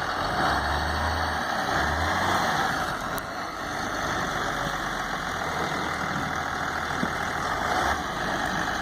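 Truck engine running steadily at low speed, with a steady hiss over it.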